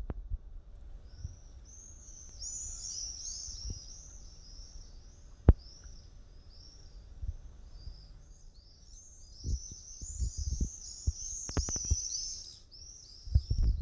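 Small birds chirping in a dense, overlapping chatter of short notes, with a single sharp click about five seconds in and a few low knocks near the end.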